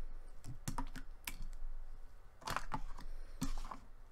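Jiggly store-bought cookie dough ice cream slime with small rubbery chocolate pieces being stretched and pulled by hand, making scattered sticky clicks and crackles, with louder clusters about two and a half and three and a half seconds in.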